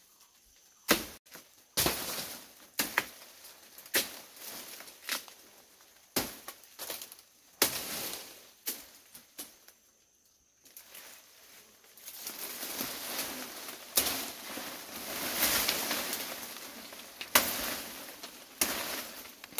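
Sharp strikes, roughly one a second, then after a short pause several seconds of rustling and scraping with a few more strikes.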